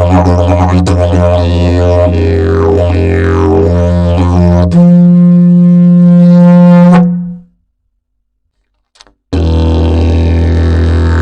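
Fiberglass and prickly-pear-fiber slide didgeridoo played as a low drone with shifting overtones. About halfway through it jumps to a higher held note, stops for about two seconds, then the drone starts again.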